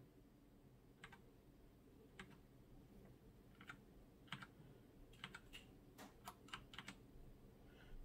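Faint, scattered key presses on a HyperX Alloy FPS Pro keyboard with Cherry MX Red linear switches, about a dozen clacks that come closer together in the second half. This is the function-key combination being pressed to cycle through the backlight effects.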